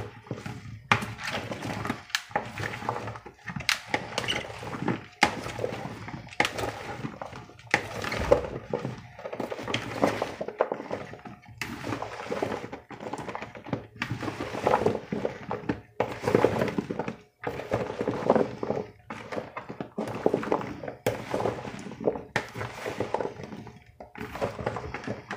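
Silicone spatula tossing cut vegetables in a plastic mixing bowl: the pieces knock and tumble, and the spatula scrapes against the bowl, in irregular strokes about once a second.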